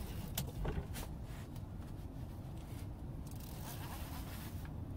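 Fishing rod handling on a boat: a few sharp clicks and knocks in the first second as the rod is taken from its holder, then a faint reel whirr about four seconds in as the rod loads against a hooked catfish, over a steady low rumble.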